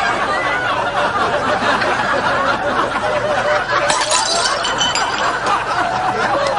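Audience laughing steadily, many voices at once. There is a brief high clink about four seconds in.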